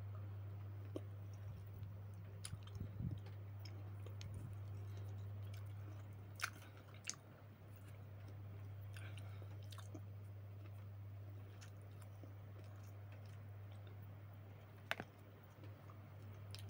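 A person chewing sour citrus fruit close to the microphone, with scattered wet mouth clicks and smacks. A steady low hum runs underneath.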